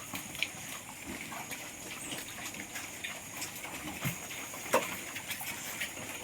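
Piglets in a pen grunting and snuffling with scattered small clicks and knocks over a steady hiss. A short low grunt comes about four seconds in, and a sharper knock follows just after, the loudest sound here.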